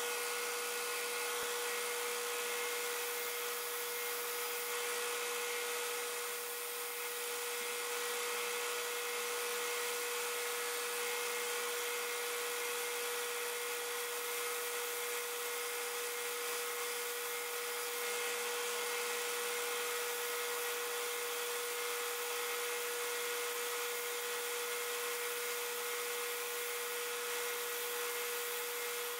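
Benchtop power tool running steadily while a wooden dowel is held and turned against it to shape its end. The sound is a constant high hum over an even hiss, with no change from start to finish.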